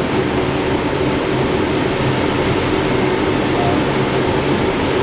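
Steady cockpit noise of a Boeing 777 on short final: an even rush of airflow over the flight deck with a constant low hum.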